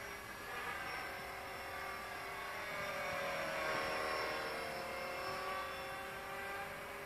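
Blade 450 X electric RC helicopter in flight: its brushless motor and self-made rotor blades give a steady whine of several tones. The pitch drifts slightly up and down as it manoeuvres, and the sound swells about halfway through.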